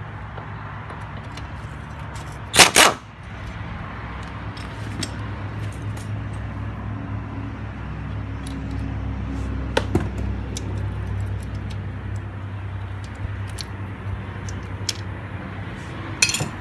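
Metal clicks and clinks as a scooter engine's timing chain and sprocket are handled and fitted by hand, with one loud metallic clatter about three seconds in and a smaller one near the end, over a steady low hum.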